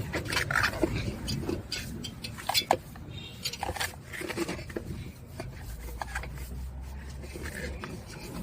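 Scattered clicks, knocks and rattles of a new tire and tools being handled and worked onto an electric tricycle's steel wheel rim, with a low hum for about two seconds near the end.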